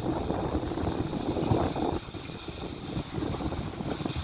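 Wind buffeting the microphone: a steady low rumble, a little quieter about halfway through.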